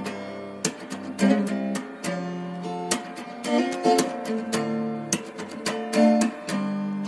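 Background music: acoustic guitar strummed in chords with a steady rhythm.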